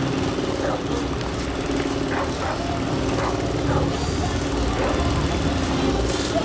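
Electric pedestal fan running close up: a steady hum over the rush of blown air, with an uneven low rumble.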